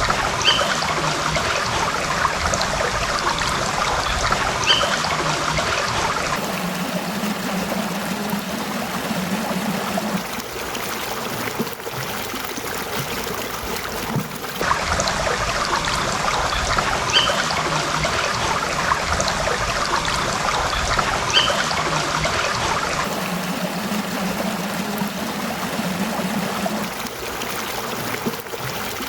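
Stream water trickling and burbling steadily, its sound changing character every several seconds, with a few brief high chirps over it.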